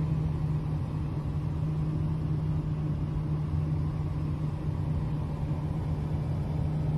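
Steady vehicle rumble with a constant low hum.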